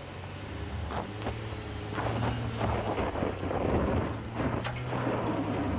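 2020 Honda Ridgeline's 3.5-litre V6 pulling hard up a steep hill, its steady hum getting louder about two seconds in. Tyres grind over loose stony dirt, and wind buffets the microphone.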